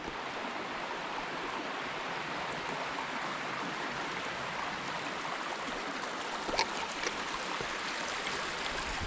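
Grubb Run, a small creek, flowing steadily through a culvert: an even, constant water noise, with a couple of faint ticks about two-thirds of the way in.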